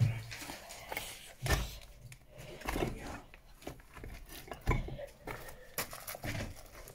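Irregular knocks, scuffs and rubbing from someone moving about and handling a handheld camera, a few sharper knocks standing out.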